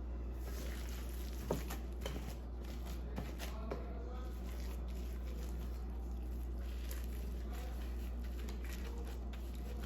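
Hands packing and rolling raw ground beef into a ball: soft squishing and patting, with a few sharper clicks in the first few seconds, over a steady low hum.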